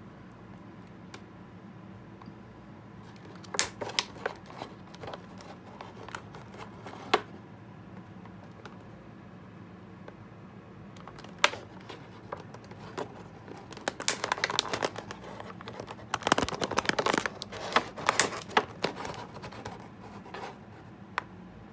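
Clear plastic blister tray crackling and clicking as it is handled and an action figure is worked out of it: a few scattered crackles, then a dense run of crinkling and snapping near the end.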